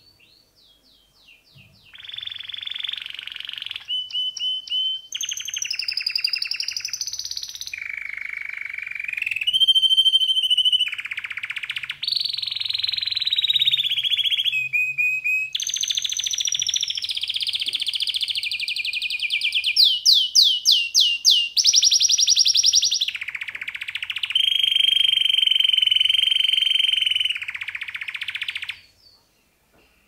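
Male domestic canary singing a long, unbroken song after a few soft chirps. The song runs through fast rolling trills, rapid repeated notes and held whistled notes, changing phrase every second or two, and stops shortly before the end.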